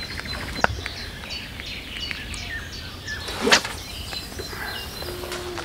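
Several birds singing, with many short high chirps and trills, over a steady outdoor hush. A sharp click comes about half a second in, and a brief loud swish about three and a half seconds in.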